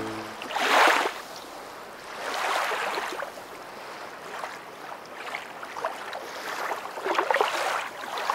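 Water washing in swells, about five surges with no pitch to them, the first the loudest.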